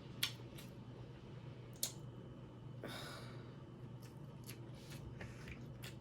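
Faint eating sounds close to the microphone: two sharp clicks about a second and a half apart, a few lighter ticks, and a short soft rustle about three seconds in.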